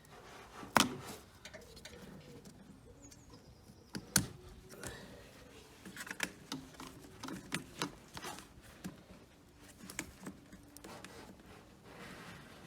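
Hands working plastic clips and sensor connectors under a car's bonnet: scattered small clicks and light knocks, with two sharper clicks about a second in and about four seconds in.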